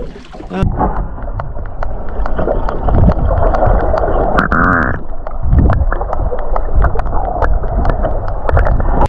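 Muffled underwater sound through a submerged camera's microphone: a dull rushing with a low rumble and many sharp clicks and ticks, while a hooked red emperor is pulled up through the water on a jig. It starts abruptly about half a second in, after a moment of wind on deck.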